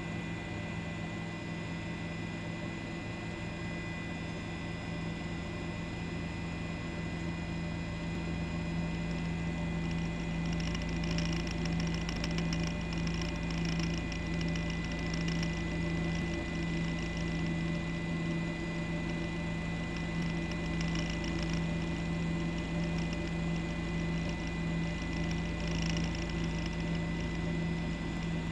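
Steady low hum with a few fixed tones, slightly louder after about eight seconds, with faint hissy noise coming and going in the middle.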